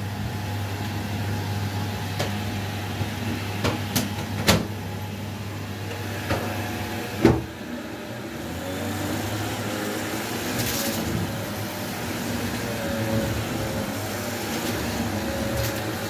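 Upright vacuum cleaner running steadily on carpet, with several sharp clicks and knocks in the first half, the loudest about seven seconds in. A higher whine joins the hum from about nine seconds in.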